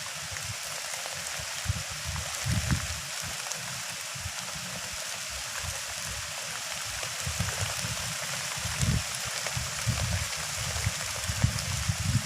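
Heavy rain falling in a steady hiss, with irregular low rumbles that come and go.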